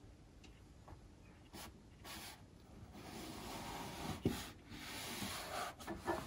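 Faint swishing of a damp three-quarter-inch flat watercolour brush stroked across paper to lift out wet paint: a few short strokes, then a longer stretch of rubbing from about halfway, with a small click a little after four seconds.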